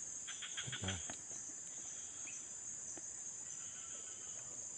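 Steady high-pitched drone of forest insects, with a short quick run of clicks about half a second in.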